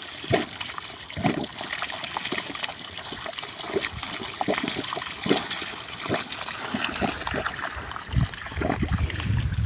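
Water trickling and gurgling, with irregular splashes, a sound taken for water in wells.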